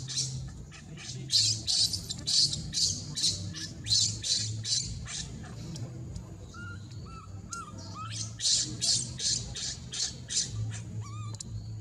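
Baby macaque screaming in a tantrum: rapid, high-pitched shrieks, about three a second. They break off about five seconds in and start again a few seconds later.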